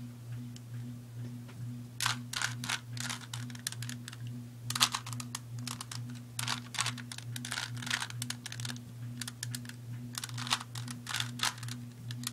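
A plastic Rubik's cube's layers being turned by hand: quick runs of clicks and rattles starting about two seconds in, over a steady low hum.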